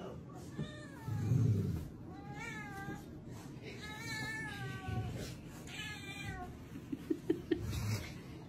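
A kitten meowing about four times, short high calls that fall in pitch. A low muffled bump comes about a second in, and there are a few soft clicks near the end.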